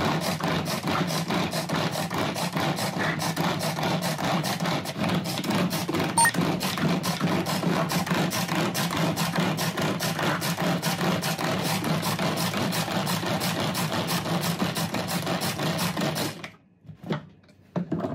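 Hand-powered pull-cord food chopper (Bunbun Chopper) worked with quick repeated pulls, its blades spinning and rattling as they mince carrot and other vegetables inside the plastic bowl: a steady whirring clatter. It stops suddenly near the end, followed by a few light clicks.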